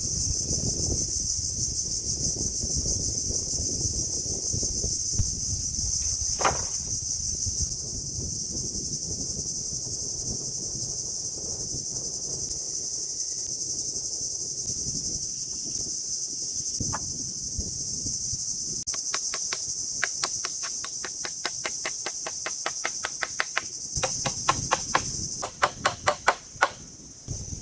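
Crickets or similar insects chirring steadily and loudly over a low rushing background noise. In the last third a fast, regular run of sharp taps sets in, several a second and growing louder near the end.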